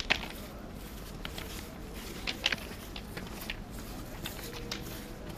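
Footsteps of rubber boots crunching on railway track ballast, an uneven run of sharp crunches and clicks, the loudest two close together about two and a half seconds in.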